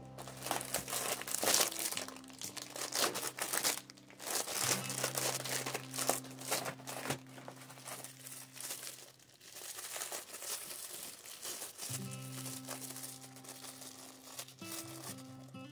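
Plastic packaging crinkling and rustling in irregular bursts as bagged items are handled and unwrapped, over steady background music.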